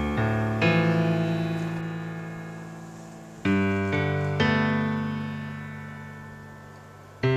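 Keyboard music in a piano-like tone: chords struck in groups of three about half a second apart, each group left to ring and fade before the next comes about three and a half seconds later.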